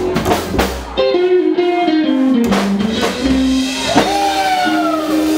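Live band with double bass, electric guitar and drum kit playing: the drumbeat stops about a second in, leaving held notes that slide down in pitch.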